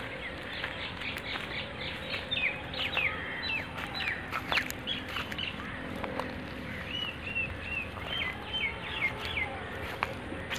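Small birds chirping and twittering: many quick, short calls one after another, with a run of repeated arched notes about seven seconds in. A few sharp clicks sound among them.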